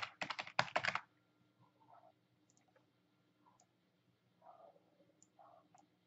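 Typing on a computer keyboard: a quick burst of keystrokes in the first second, then a few faint clicks.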